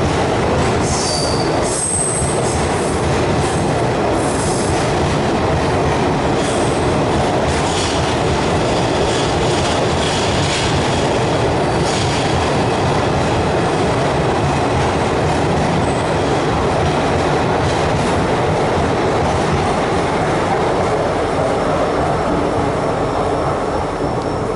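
Express passenger train coaches running through a station at speed without stopping: a steady loud rumble and rattle of wheels on rail, with scattered clicks over rail joints and brief high wheel squeals about a second in. The noise eases slightly near the end.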